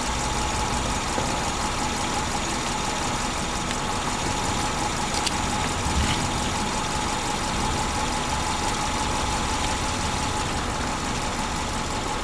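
A steady running engine hum with a faint constant whine and no change in pitch, with a couple of faint clicks about five and six seconds in.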